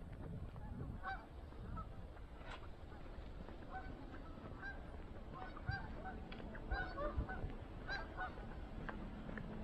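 A flock of waterfowl calling: many short, repeated calls, some overlapping, over a steady low rumble.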